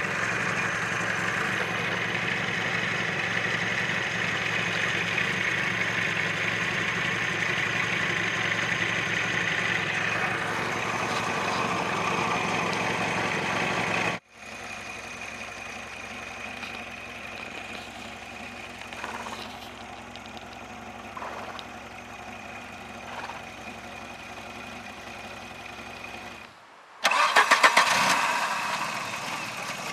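Volvo 740 engine running steadily, heard in separately cut takes: louder at first, then quieter after a sharp cut about halfway through. Near the end comes a sudden loud burst of rapid engine pulses that fades back down.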